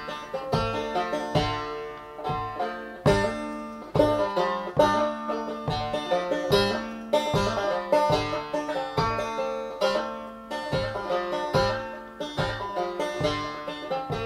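Banjo picking a bluegrass-style tune: a steady run of bright plucked notes over regular lower bass notes.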